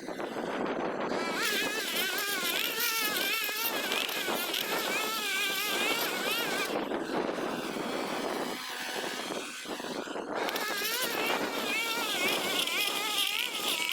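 Small petrol garden-machine engine starting up abruptly and running hard, its pitch wavering up and down with the load, with two brief dips.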